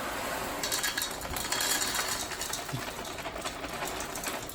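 Dry cereal being poured into a bowl: a dense rattle of many small pieces, heaviest in the first few seconds.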